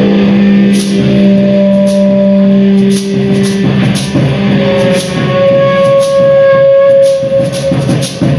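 Live music from a small group: loud held pitched tones that shift every second or two, with sharp high percussive strikes at irregular times.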